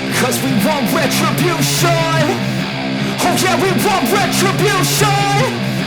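Hard rock music with distorted guitars and drums, a punk or metal track with a pitched lead line, between sung verses.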